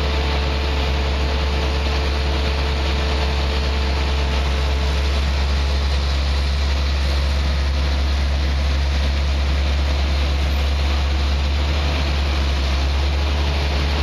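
Heavy engine idling steadily: a constant low hum under an even hiss, unchanging throughout.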